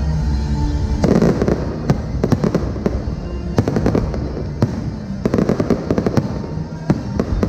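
Aerial fireworks bursting: from about a second in, a dense run of sharp cracks and crackling pops in clusters, over steady low music.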